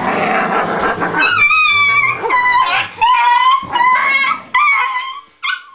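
Czechoslovakian wolfdog puppies playing rough: a noisy scuffle for about the first second, then a string of high, wavering whines and yips, several in a row.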